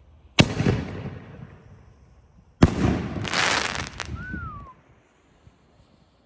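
A 4-inch T-Sky YourTube canister shell: the lift charge fires from the mortar tube with a sharp bang, then about two seconds later the shell breaks overhead with a second loud bang, followed by about two seconds of crackling from its stars that stops suddenly.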